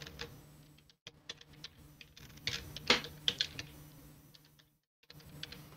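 Typing on a computer keyboard: quick, irregular keystroke clicks as an email address is entered, with a brief pause near the end.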